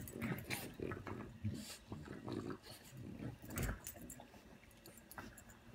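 A dog licking another dog's head and face over and over, giving irregular wet smacks and snuffles.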